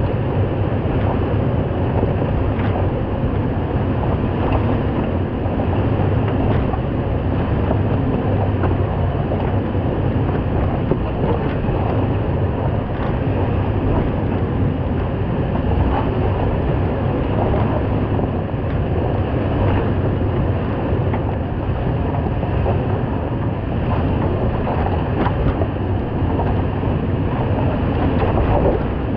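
Toyota 4Runner driving an off-road trail, picked up at the front bumper: a steady low rumble of the vehicle and its tyres on rough ground, with small knocks and clicks scattered throughout.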